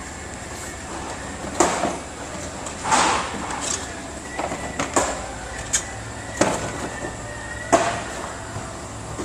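Sharp clicks and knocks of car body panels and their fasteners being worked loose and handled, about seven in all, with a faint steady whine through the middle.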